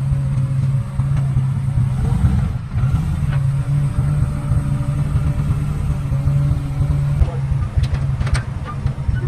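Car engine idling with a deep, steady low rumble, with a few sharp clicks near the end.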